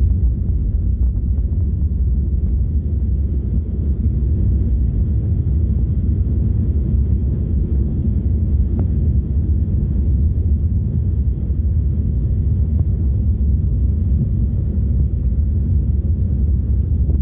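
Steady low rumble inside a jet airliner's cabin as it taxis: engines at low thrust and wheels rolling, with no spool-up for takeoff yet.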